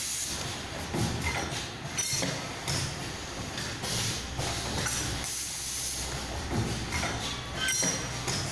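MSP-1-1 automatic screen printing machine for saw blades running, with repeated short hisses every second or two over a steady low machine hum.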